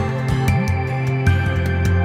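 Background music: sustained steady tones with recurring percussive hits.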